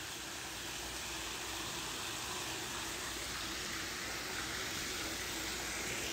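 Steady hissing background noise with a faint low hum underneath.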